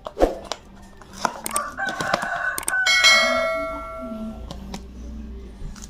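A rooster crowing once: one long call that climbs and then holds on a steady note before fading. A few short clicks are heard around it.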